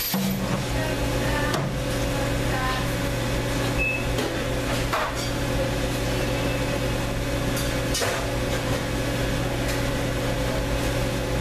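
Steady hum of commercial kitchen equipment, with a few faint knocks and clatters now and then.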